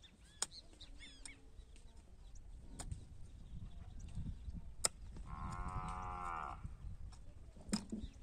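A cow moos once, a single drawn-out call of about a second and a half a little past halfway. A few sharp strikes of a hoe biting into stony soil land around it.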